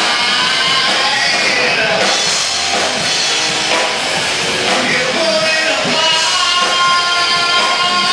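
Live rock band playing: a man's amplified singing over guitar and a drum kit, with long held notes.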